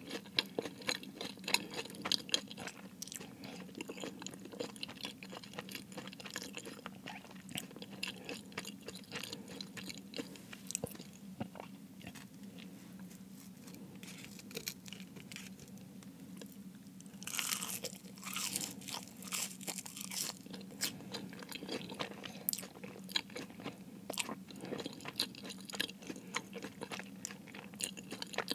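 Chewing and crunching of a flaky-crusted Jamaican beef patty: a steady run of small crisp crackles of pastry, with a louder, longer crunch a little past halfway.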